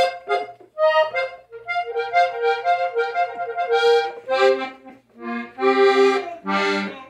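Gabanelli norteño button accordion played haltingly by a beginner. A run of single reedy notes steps up and down, then lower, fuller notes come in short blasts near the end, with brief gaps between phrases.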